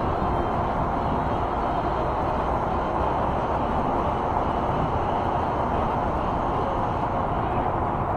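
Steady rushing noise of riding an e-bike at speed: wind over the handlebar-mounted camera mixed with the hiss of highway traffic passing alongside.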